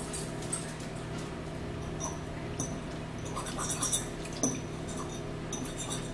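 Forks tapping and clinking lightly against bowls during a meal, a handful of scattered taps, over a faint steady low hum.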